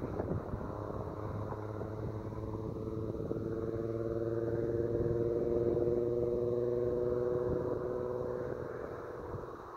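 2003 Volkswagen Jetta GLI's 2.8-litre VR6 engine and exhaust, fitted with a high-flow catalytic converter and Borla S-Type muffler, droning steadily as the car drives along at steady speed. The drone swells a little midway and eases off near the end.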